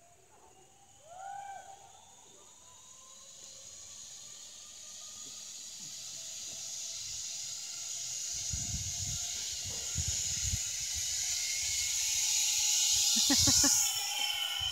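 Zip-line trolley running along the steel cable: a hissing whine that grows steadily louder as the rider comes closer, peaks as it passes near the end, and drops in pitch as it goes by.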